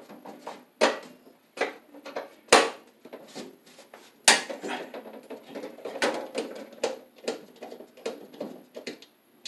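Steel cover of a household breaker panel being unscrewed and worked loose by hand: irregular sharp metallic clicks, taps and knocks, the loudest knocks about a second, two and a half, and four seconds in.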